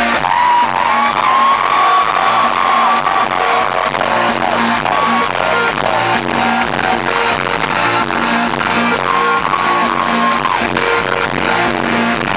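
A rock band playing live, amplified: a steady beat and repeating bass notes under a sliding lead melody line.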